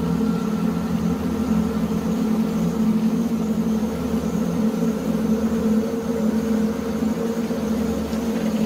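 Steady low mechanical hum with a few constant tones over a rumble, unchanging throughout.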